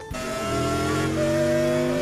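Race car engine revving up, its pitch climbing steadily.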